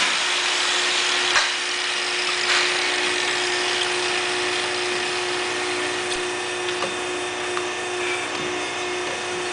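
Electric hoof-trimming grinder running steadily with a constant whine while it takes horn off a cow's claw, with a few faint clicks.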